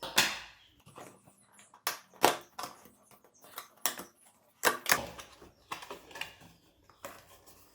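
Seal on a cardboard product box being cut and the box opened by hand: a series of irregular sharp clicks, taps and scrapes of cardboard and packaging.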